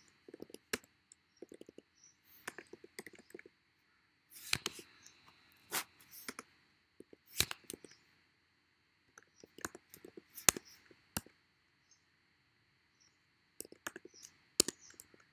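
Computer keyboard typing in short quick runs of keystrokes, with several louder single key clicks spaced through.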